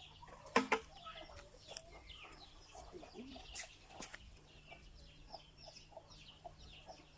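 Faint, scattered clucking of chickens, with a couple of sharp knocks, the loudest just over half a second in.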